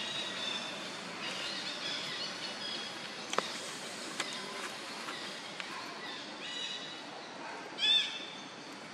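Several short, high-pitched chirping calls over a steady outdoor background, the loudest near the end, with a couple of sharp clicks in the middle.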